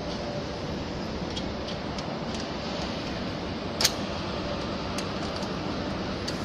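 Stainless steel hoop clamp clicking as it is fitted around a vacuum conveyor hopper: scattered small metal clicks and one sharp click a little before four seconds in, over a steady machinery hum.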